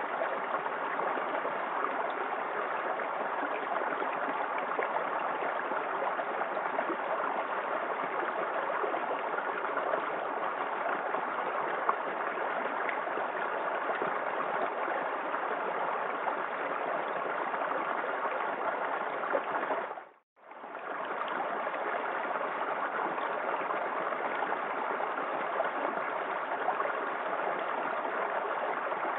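Small waterfall in a forest creek: water splashing and gurgling in a steady, even rush. About two-thirds of the way through, the sound cuts out for a moment and fades back in.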